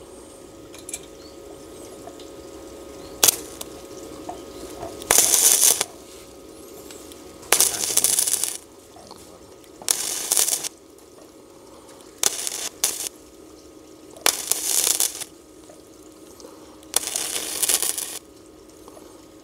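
Electric arc welder laying short welds: six crackling bursts of about a second each, a couple of seconds apart, over a steady low hum.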